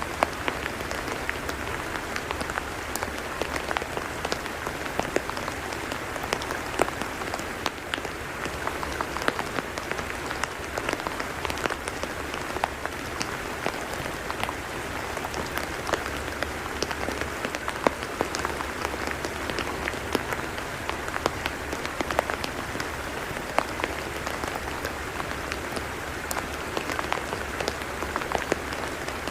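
Steady rain falling on a tidal mudflat: an even hiss dotted with many sharp, irregular drop ticks.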